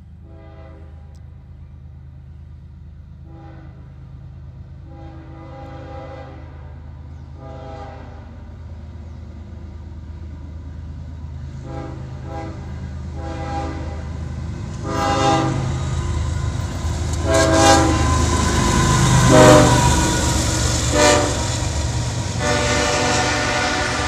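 CSX freight train led by two GE diesel locomotives, an ES44AH and a C40-8W, approaching and passing, its air horn playing a horn show: a long string of short toots and held blasts that grow louder as it nears. The diesel engines' rumble builds steadily and peaks as the locomotives go by, about three quarters of the way through.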